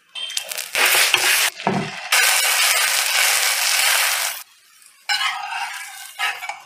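Oil and dosa batter sizzling on a hot tawa in three separate spells, the longest in the middle, each cutting off sharply.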